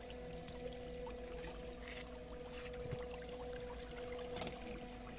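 Water trickling and dripping off a wet cast net as it is handled and gathered, with scattered small clicks and a steady hum underneath.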